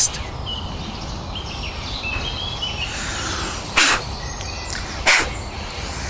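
Woodland background with faint high bird chirps, broken by two short, loud, harsh rasping sounds about four and five seconds in.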